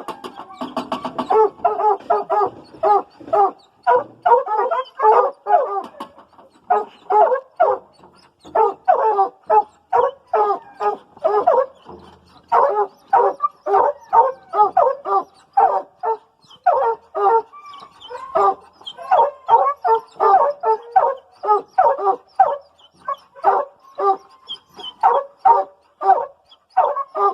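Hunting hounds barking over and over, a few barks a second, with only short pauses.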